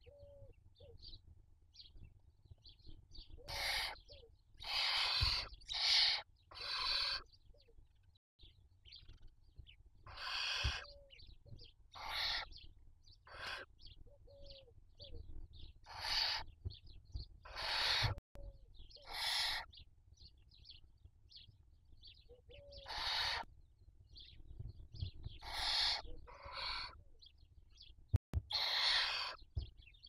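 Barn owls in the nest giving harsh hissing calls: about sixteen noisy bursts, each roughly a second long, at irregular gaps, with faint short chirps between them.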